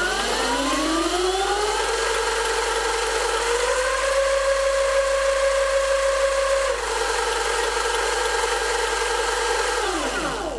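OSET 20.0 electric trials bike's motor and drivetrain whining as the rear wheel spins off the ground under steady throttle. The pitch rises as the wheel spins up, steps higher about three and a half seconds in when the speed switch goes from the 75% low setting to the 100% high setting, and steps back down about seven seconds in when it is switched back to low. The whine falls away and stops near the end as the throttle closes.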